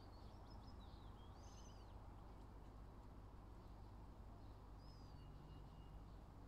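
Near silence with faint bird chirps: a few short high calls in the first two seconds and another about five seconds in, over a low steady hum.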